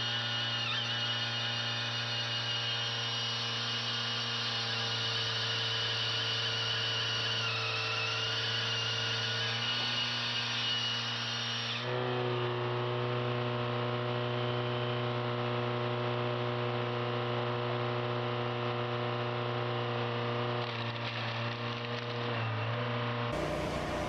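Engine of a firewood processor running at a steady speed with a constant drone. The sound changes abruptly about halfway through and again near the end.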